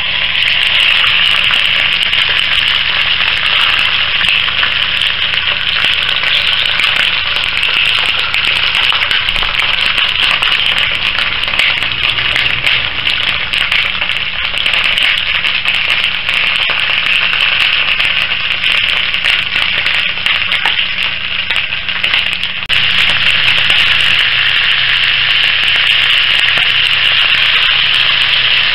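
Whole gutted dab sizzling as it fries in a frying pan: a loud, steady hiss that steps up a little about three-quarters of the way through.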